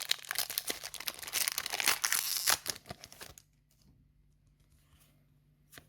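A foil Yu-Gi-Oh Duelist Nexus booster pack being torn open and crinkled for about three seconds, then stopping, with only a few faint ticks from card handling after.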